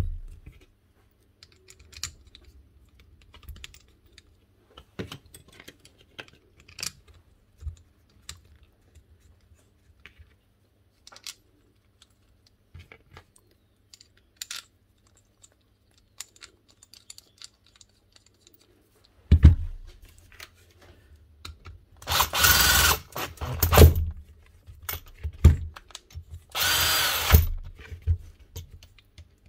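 Light clicks and taps of small metal parts being handled, then a power drill run in several short bursts in the last ten seconds, driving the bolts that hold a Makita rotary hammer together.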